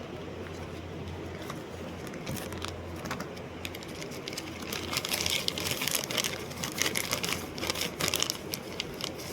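Light, irregular clicks and taps, sparse at first, then a dense quick run through the second half, over a steady low hum.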